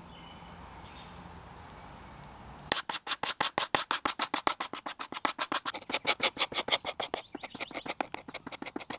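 Hand scraper scraping old lacquer finish off a wooden tray in quick, regular back-and-forth strokes, about seven a second. The strokes start about three seconds in, after a faint steady background.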